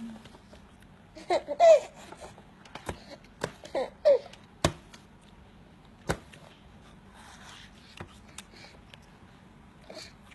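High-pitched laughing from young children in two short bursts, about a second and a half in and again about four seconds in, with scattered sharp wet smacks of mouths biting and sucking at juicy watermelon.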